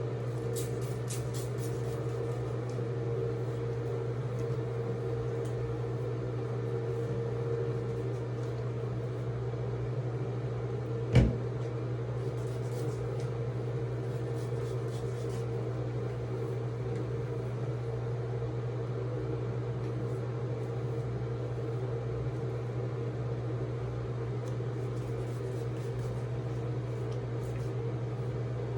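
A steady low appliance hum, with one sharp click about eleven seconds in and a few patches of faint, light ticking.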